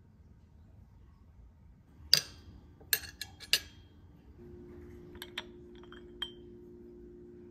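Metal fork and ceramic plates clinking: about four sharp clinks a couple of seconds in, then lighter china clinks of a cup on its saucer, the last one ringing briefly. A low steady hum starts about halfway through.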